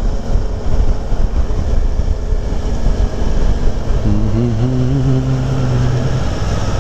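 Motorcycle riding noise from a Suzuki V-Strom on the move: a steady low engine and wind rumble. About four seconds in, a steady pitched engine note holds for about two seconds.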